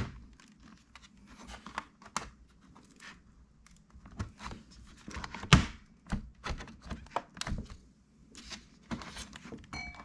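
Plastic clips of a Lenovo Legion 5 laptop's bottom cover snapping loose as the panel is pried off by hand: a string of sharp clicks and snaps, the loudest about halfway through.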